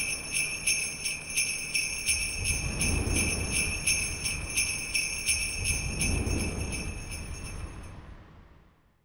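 Sleigh bells shaken in a steady rhythm, about three shakes a second, over a low rumble that swells twice. The bells fade out near the end.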